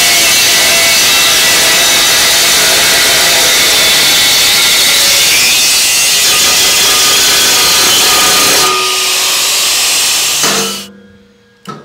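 Makita angle grinder cutting across a thin aluminium flap: a loud, steady screech of disc on metal. About nine seconds in the cut ends and the sound thins out, then stops abruptly at about ten and a half seconds, followed by a couple of light clicks.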